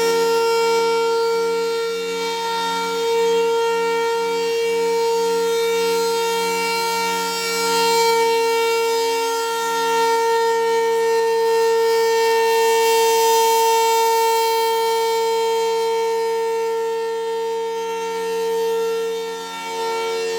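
Federal Signal Thunderbolt 1000 outdoor warning siren sounding its full-alert steady tone. The pitch holds steady while the loudness swells and fades slowly as the rotating siren head turns.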